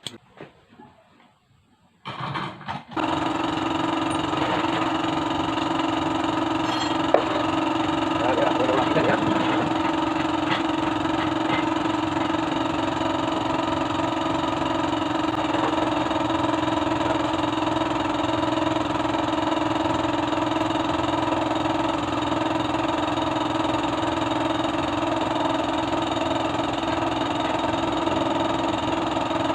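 Bajaj CT100 motorcycle's single-cylinder four-stroke engine starting about two seconds in, then running steadily. It is freshly reassembled after an overhaul.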